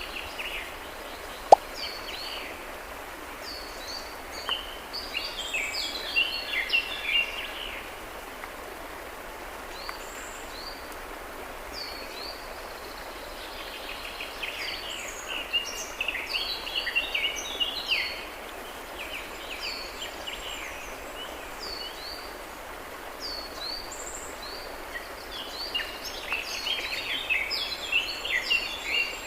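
Small birds chirping and twittering in bursts of short, quick, falling notes over a steady outdoor hiss, with one sharp click about a second and a half in.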